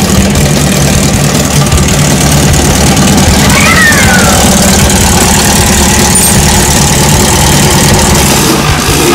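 VW Beetle's air-cooled flat-four engine idling steadily.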